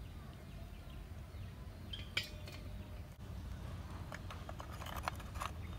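Hard oyster shells clicking and clinking against each other and a ceramic plate as they are handled, one sharp click about two seconds in and a run of clicks in the second half, over a steady low rumble.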